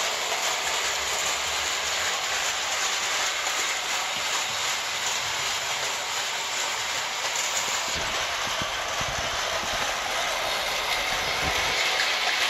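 1912 Märklin gauge 1 electric toy train running on tinplate track: a steady metallic rattle and clatter from the tinplate locomotive and passenger coaches rolling over the rails.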